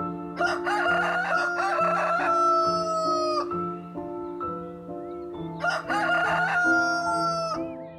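Rooster crowing twice. The first cock-a-doodle-doo lasts about three seconds and the second is shorter, each ending in a long held note. Soft background music plays underneath.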